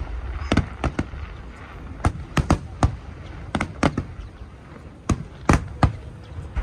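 Aerial fireworks shells bursting overhead: a string of sharp bangs at irregular intervals, some in quick pairs, with a dull background rumble between them.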